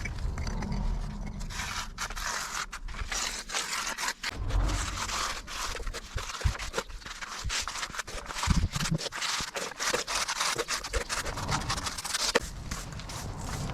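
Scraping: a rapid, irregular run of short scraping strokes.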